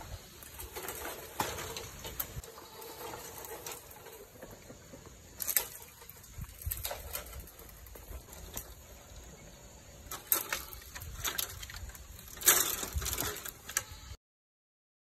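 Scattered light knocks, clicks and rustling at an irregular pace, with the loudest knocks about five and a half and twelve and a half seconds in; the sound cuts off abruptly to silence about fourteen seconds in.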